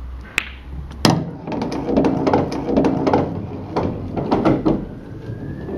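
Pool cue striking the cue ball with a sharp click, then a loud clack of balls about a second in, followed by a run of knocks and rattles of billiard balls on a wooden-framed table for about four seconds.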